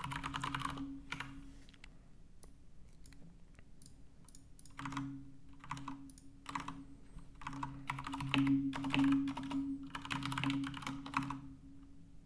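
Computer keyboard typing in several bursts of quick key clicks, with short pauses between them.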